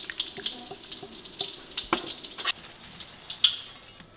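Kitchen cooking sounds: a crackling, sizzling hiss with a few sharp clicks of a utensil, the loudest about three and a half seconds in.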